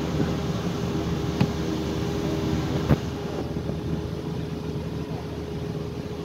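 Vehicle driving over a rough gravel road: the engine runs steadily under a continuous road rumble. Two sharp knocks come about a second and a half in and again about three seconds in.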